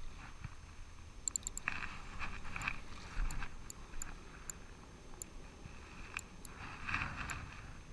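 Handling noise from a spinning reel and rod while a fish is being played: scattered light clicks and scrapes, with short rustling spells about two seconds in and again near the end.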